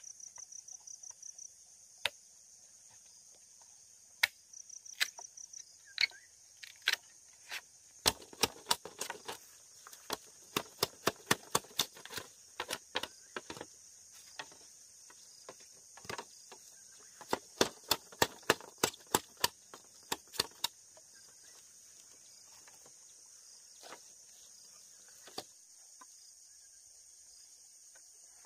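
Repeated sharp knocks in quick runs, densest about eight to thirteen seconds in and again around seventeen to twenty-one seconds, over a steady high chorus of insects. The insects add a short pulsed chirping twice near the start.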